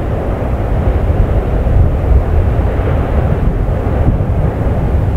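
Fagradalsfjall volcano erupting: a loud, steady, low-pitched rushing noise with no separate blasts or bangs.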